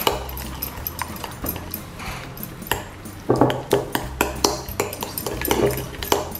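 A utensil clinking and scraping in a small bowl, with irregular taps and a few louder scrapes, as brown slime is stirred with borax water, the activator that makes it set.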